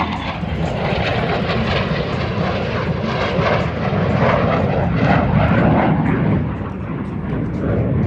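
Airplane flying past with loud, continuous engine noise that swells in the middle and eases off near the end.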